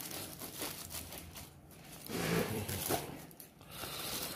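A knife cutting and tearing open crumpled aluminium foil, crinkling and rasping in short irregular bursts.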